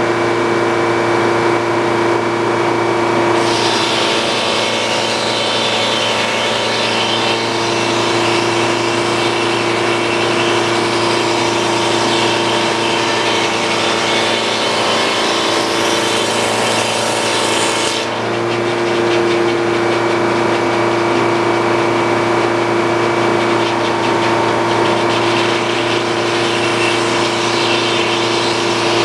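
Sawmill's engine running steadily, with the saw blade cutting through a wooden cant from about three seconds in until about eighteen seconds in, then the engine running on alone.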